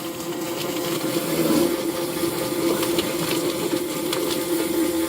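Chicken plucking machine running with water on: a steady motor hum and spray as the scalded bird tumbles inside, with a few sharp knocks.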